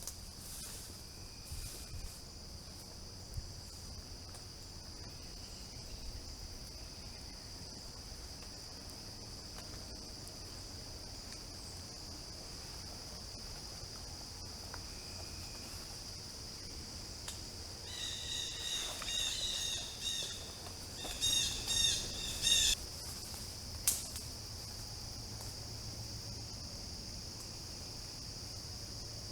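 Outdoor woodland ambience: a steady, high-pitched drone of crickets or other insects. A bird sings a run of short repeated notes in two bursts about two-thirds of the way through, followed by a single sharp click.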